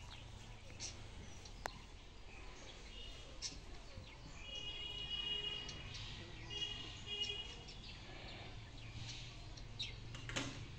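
Birds chirping in several high, repeated calls over a low, steady outdoor background noise, with a few short clicks.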